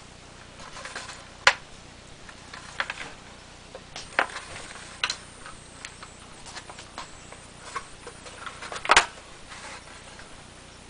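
Irregular small clicks and taps of screws and a screwdriver being handled while fastening the control panel back onto an electric smoker, with a sharper knock about nine seconds in.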